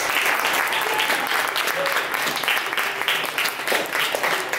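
Audience applauding at the end of a song, a dense, steady clapping from a room full of people.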